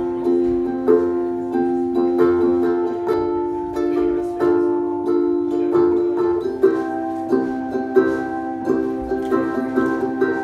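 Ukulele strummed in a repeating chord pattern, with no voice over it; the chords change a little past six seconds in.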